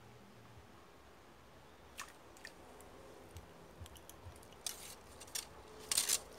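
Scattered sharp clicks and rustles, more frequent and louder toward the end: handling noise as an angler lifts a pole rod and takes the line and a small hooked lambari in hand.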